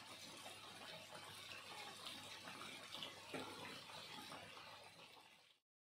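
Floured chicken pieces deep-frying in hot oil, a faint steady sizzle that fades out near the end.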